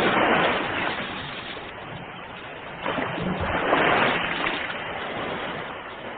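Ocean waves breaking on the shore, two surges of surf, one right at the start and a second about three seconds in, each washing out and fading.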